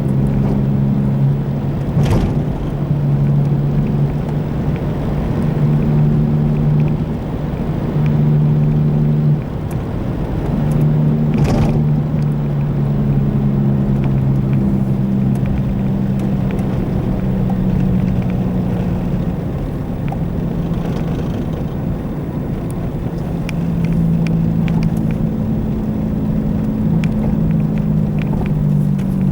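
Car driving with a low droning hum over the road noise, typical of a worn wheel bearing; the drone fades and comes back several times, and two brief knocks cut through it.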